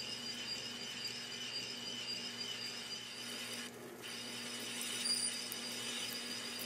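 Metal lathe running with a parting tool cutting through the spinning lap barrel to part it off to length: a steady whine with a brief dip about four seconds in.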